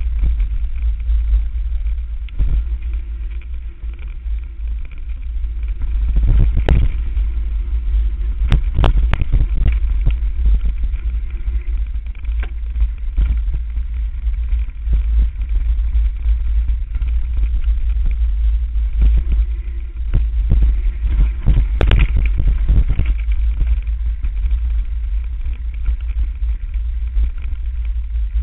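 Mountain bike ridden fast down a dirt forest trail, heard from a camera riding with it: a steady low rumble of wind buffeting and trail vibration on the microphone, with sharp knocks and clatters from the bike jolting over bumps, in a cluster about a quarter to a third of the way in and again about three quarters through.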